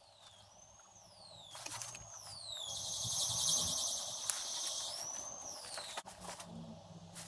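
An aerosol can spraying, a hiss lasting about two seconds, among a run of high falling squeals.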